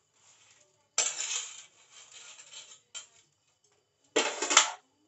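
Metal spatula scraping and clinking against a steel plate and a metal kadhai: a sharp scrape about a second in, a small click near three seconds, and a louder run of quick scrapes just after four seconds as the koftas are stirred into the gravy.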